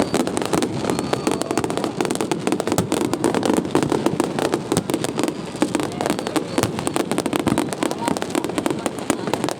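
Fireworks going off in a dense barrage: a continuous rapid crackle of many overlapping pops and bangs with no break.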